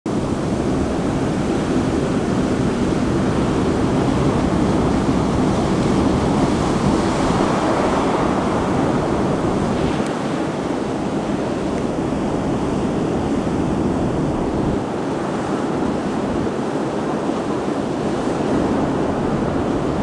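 Storm waves on the Black Sea breaking in a harbour: a continuous rush of surf that swells a little around six to eight seconds in. Wind buffets the microphone.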